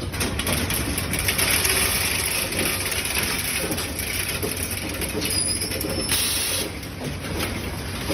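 Automatic counting and packing machine running steadily: a dense mechanical hiss over a low hum, easing off slightly near the end.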